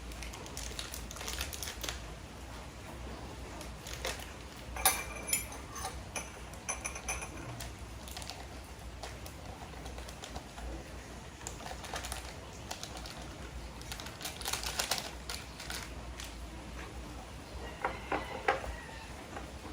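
Irregular clicks, knocks and clatter of objects being handled, heaviest around five to seven seconds in, near fifteen seconds in, and in a quick run of clicks near the end, over a low steady hum.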